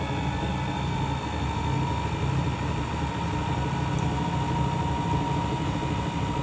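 Lidl Monsieur Cuisine Connect food processor's 800 W mixing motor running at speed 4: a steady low hum with a whine that edges up in pitch and then holds. It is the louder and less even-running of the two models compared.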